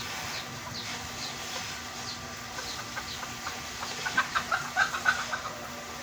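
Chickens calling: a quick run of short clucks about four seconds in, over faint, high, downward chirps that repeat throughout.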